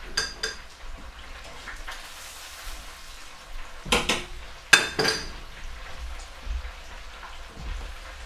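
Chicken katsu sizzling in the hot oil of an electric deep fryer. Metal tongs clink against a plate near the start, and louder metal clanks at the fryer come about four and five seconds in.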